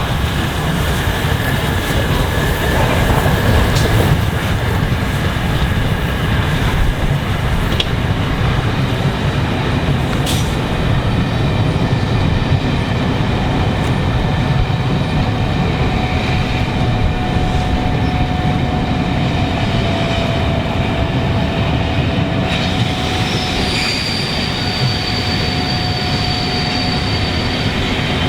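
A train rolling past close by: a steady rumble of wheels on rail with a few clicks over the rail joints, and a faint high wheel squeal in the second half.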